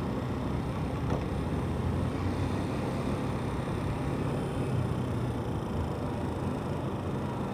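Motorcycle riding at low speed, its engine and the wind and road noise on the bike's camera mic making a steady low rumble.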